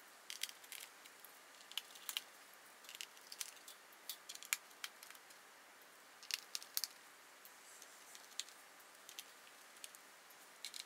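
Faint, irregular small clicks and ticks of a precision screwdriver working out the tiny bottom-case screws of a MacBook Pro 13-inch, and the screws being set down one by one on the table.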